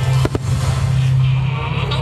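A steady, low held note in the show's music track, with two sharp firework pops in quick succession about a quarter of a second in.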